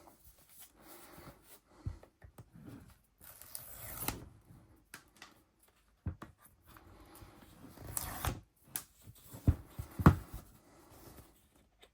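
A new smartphone's retail box being opened by hand: paper tearing and cardboard rustling, with two sharp knocks about nine and a half and ten seconds in.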